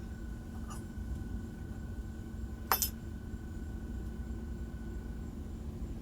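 A single sharp metallic clink about three seconds in, from lock-picking tools on the padlock while its plug is being picked for removal, over a faint steady hum.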